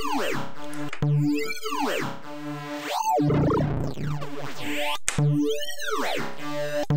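Reason's Maelstrom software synth playing a square-wave tone through a comb filter swept by the Ammo modulator's retriggered oscillators. It makes a wobbling, dubstep-style bass with a filter sweep rising and falling about once a second, and sharp attacks as keys are struck.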